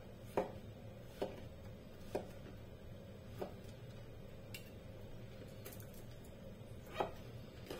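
Kitchen knife slicing king oyster mushrooms on a plastic cutting board: light, separate knocks of the blade on the board, roughly one a second, with a pause of a couple of seconds before the last two.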